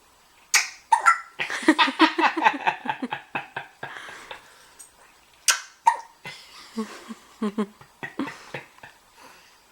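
A baby hiccupping: two sharp hiccups, one about half a second in and another about five seconds later, with a stretch of laughter and short vocal sounds between them.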